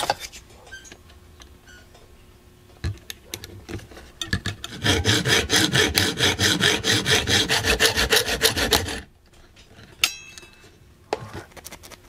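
Fine-toothed hand saw cutting through thin brass tubing in a miter box: quick, even back-and-forth strokes for about four and a half seconds. About a second after the sawing stops comes a single light metallic clink with a brief ring.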